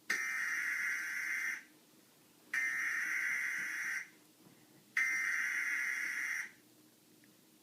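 Three screeching Emergency Alert System digital data bursts (SAME code tones) of a fake attack-warning alert. Each burst lasts about a second and a half, with about a second between them.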